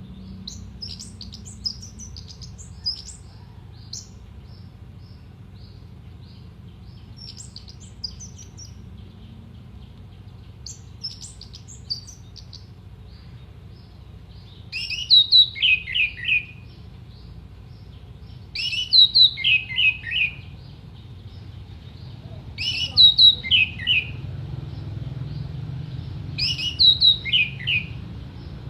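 Orange-headed thrush singing: soft, high twittering for the first half, then loud phrases of several falling whistled notes, repeated about every four seconds. A faint low hum runs underneath.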